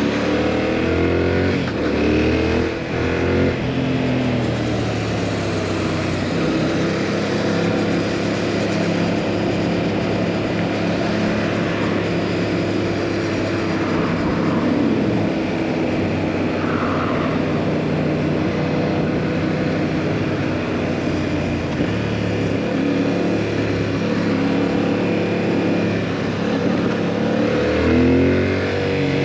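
2022 Yamaha MT-07's parallel-twin engine with a full exhaust, heard from the rider's seat: the engine note rises and falls through gear changes in the first few seconds, holds steady while cruising, then rises and falls again about two thirds of the way through and near the end, with wind rushing throughout.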